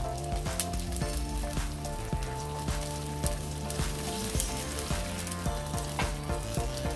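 Beef large intestine (daechang) cooking in bone broth in a pan on a gas stove, sizzling with scattered crackling pops, over background music.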